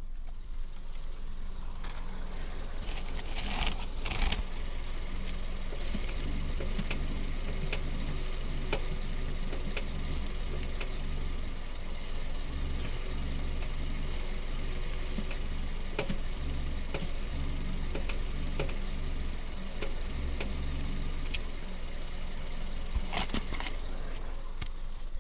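Hyundai Solaris steering rack knocking: irregular sharp knocks over a steady low engine hum, with stronger clusters of knocks about four seconds in and near the end. The knock is the sign of a worn steering rack bushing, which the owner gives as the likely cause.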